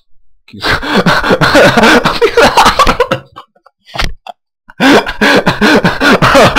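A man laughing loudly in two long bouts of rapid pulses, with a pause of about a second between them.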